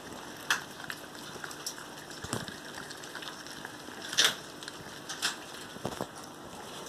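A litter of puppies eating chopped beef and carrots from a stainless steel feeding pan: continuous wet chewing, smacking and lapping, with sharp clicks and clinks against the metal pan now and then, the loudest about four seconds in.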